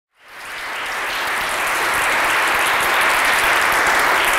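Audience applauding, the clapping swelling to full within the first second and then holding steady.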